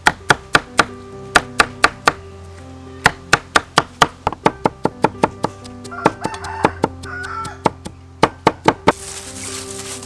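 Cleaver chopping red bell pepper on a thick round wooden chopping board: sharp knocks in quick runs of three to ten, about four a second, with short pauses between runs.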